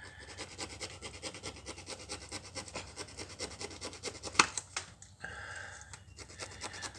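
A small hand file rasping in quick, short strokes on a metal Meccano part, enlarging a hole so that it lines up with the bolt holes of the motor bracket. There is one sharper click partway through.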